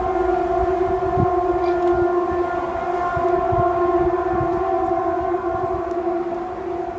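A loud, steady horn-like drone holding one pitch without rising or falling, over a low rumble, of the kind posted as a mysterious 'strange sound' in the sky. It eases off slightly near the end.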